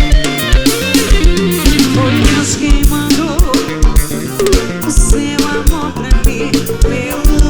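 Live band music in an instrumental passage between vocal lines: a drum kit keeps a steady kick-drum beat under guitar and other melodic instruments.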